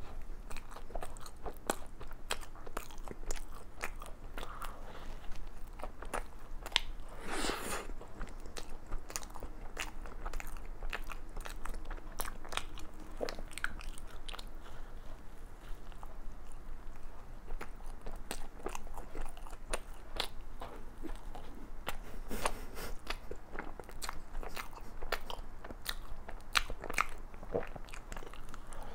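Close-miked chewing and biting of a Krispy Kreme chocolate doughnut topped with cream and chocolate pieces: steady mouth sounds with frequent small sharp clicks and crunches, and a louder burst about seven and a half seconds in.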